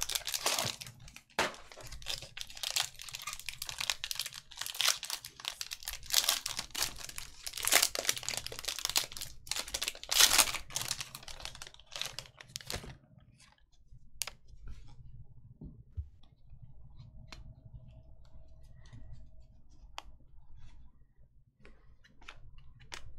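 Cardboard trading-card box torn open, then its foil pack crinkled and ripped open, a dense run of crackling and tearing for about the first 13 seconds. After that it goes much quieter, with only scattered soft clicks of the cards being handled.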